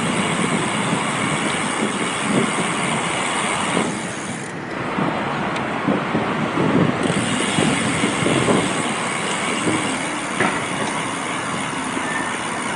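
Steady rush of wind and road noise from a bicycle being ridden fast, with the high hiss easing for a couple of seconds about a third of the way in.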